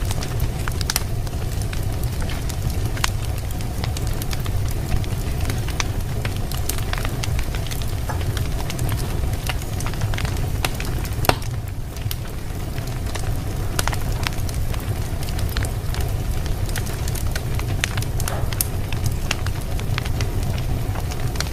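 Fireplace fire crackling, with scattered sharp pops over a steady low rumble. Two pops stand out, about five and eleven seconds in.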